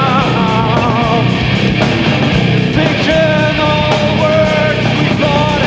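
Live punk rock band playing loud, with electric guitars, bass and drums under a wavering sung vocal line.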